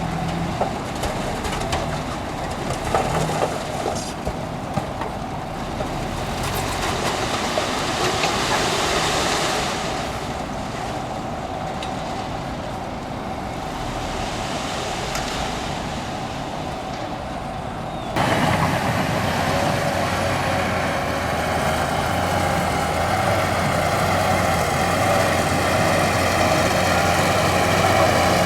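Heavy diesel earthmoving machinery running steadily. About two-thirds of the way in, the sound switches abruptly to a louder, steadier engine note.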